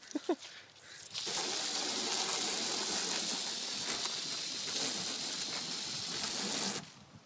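A steady, loud hissing spray dousing the fire in a blown-up CRT monitor, switched on about a second in and cut off abruptly near the end.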